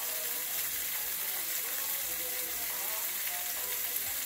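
Oxtail pieces sizzling as they brown in hot oil in a stainless steel frying pan: a steady, even hiss.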